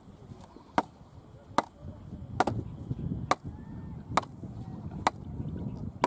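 A wooden club pounding a bamboo post down into a raft of banana tree trunks: six evenly spaced strikes a little under a second apart.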